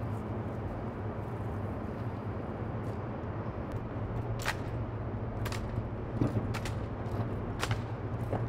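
Several sharp, separate clacks and slaps from a rifle drill team handling their drill rifles and stepping in a silent drill routine, irregularly spaced from about four seconds in, over a steady low hum.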